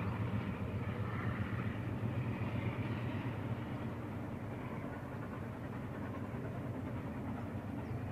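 NSW 36 class steam locomotive 3642 and its train running along the far riverbank, the sound fading away as it recedes during the first half, over a steady low drone.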